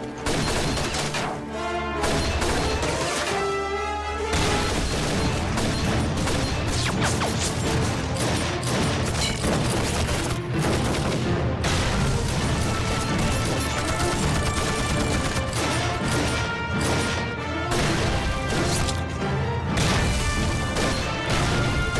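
Battle sound mix of rifle gunfire, crashes and explosions, with dramatic background music running under it. A blast near the end.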